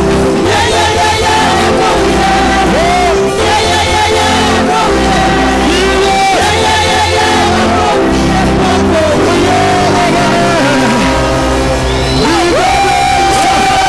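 Loud praise-and-worship music with singing over a steady bass, with shouts from the congregation; a long held sung note near the end.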